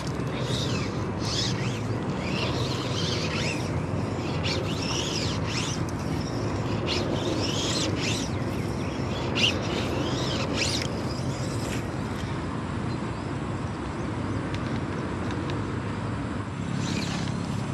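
Birds chirping in short irregular bursts over a steady low outdoor rumble, with one sharp click about nine and a half seconds in.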